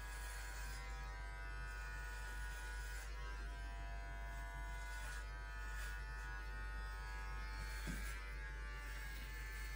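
Electric hair clippers buzzing steadily while trimming hair around a man's ear.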